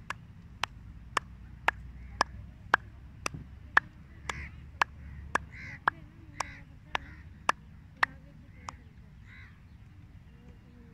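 A steady series of sharp, evenly spaced clicks, a little under two a second, that stop a couple of seconds before the end.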